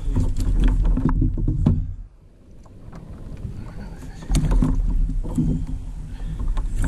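A large cubera snapper, held on a lip grip beside a plastic kayak, splashes and thrashes at the surface, with sharp knocks against the hull over a low rumble. The rumble and splashing drop away about two seconds in and return strongly about two seconds later.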